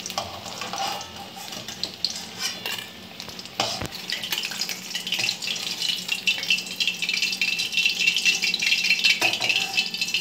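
A metal spatula scraping and clinking against a kadai as fried fish pieces are lifted out of hot mustard oil, with scattered knocks and the oil sizzling and crackling. The sizzle grows stronger from about halfway through.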